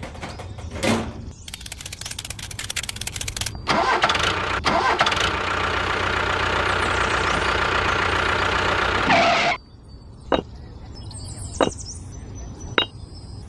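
An engine cranks with a rapid clatter, catches and runs steadily for about six seconds, then cuts off suddenly. A few sharp clicks follow, about a second apart.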